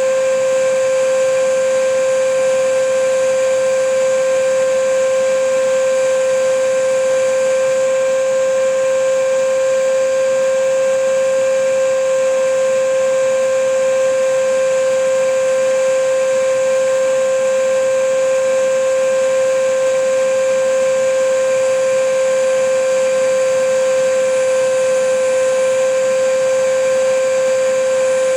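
Vacuum cleaner motor running steadily: a constant high whine over an even rush of air, unchanging throughout.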